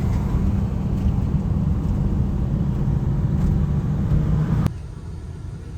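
Steady low rumble of a vehicle driving on the road, which cuts off abruptly about three-quarters of the way in and gives way to a much quieter background.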